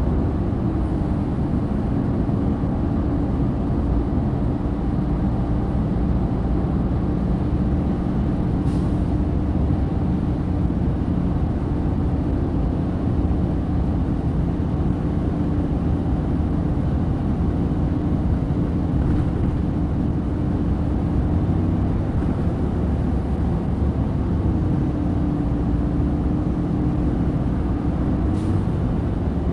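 Orion VII NG hybrid bus standing with its Cummins ISB diesel idling, a steady low rumble. A steady hum rides on top, cuts out about 21 seconds in, comes back a few seconds later and stops again near the end.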